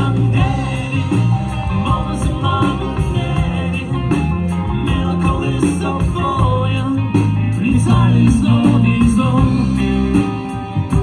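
Live rock band playing through a PA: electric guitars, bass guitar and a drum kit keeping a steady beat.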